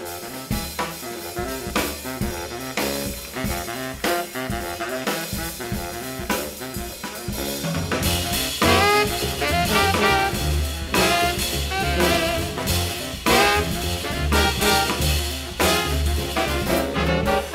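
Live jazz nonet of saxophones, trumpet, trombone, tuba, piano, double bass and drums. The drum kit leads for the first several seconds. About eight seconds in, the full band comes in louder, with the horns, baritone saxophone among them, over a strong double bass.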